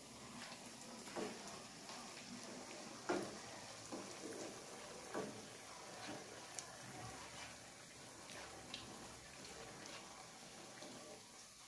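Sel roti, a ring of rice-flour batter, deep-frying in hot oil in a wok: a steady faint sizzling and bubbling, with a few light knocks, the loudest about three seconds in.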